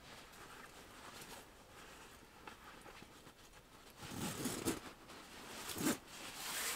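A nylon down sleeping bag rustling as a person burrows into it and pulls it over their head. It is faint at first, then comes in louder bursts of rustling about four seconds in and again near the end.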